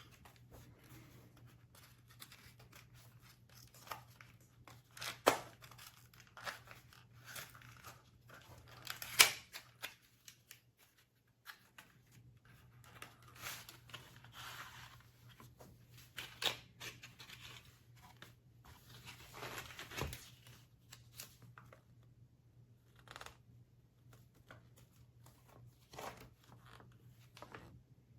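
Rustling, tearing and scattered clicks of objects being handled close to the microphone, with two sharper knocks about five and nine seconds in, over a faint low steady hum.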